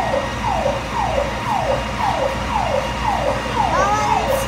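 Fire truck siren sounding in a fast repeating pattern of short downward sweeps, each dropping sharply in pitch, about one and a half a second.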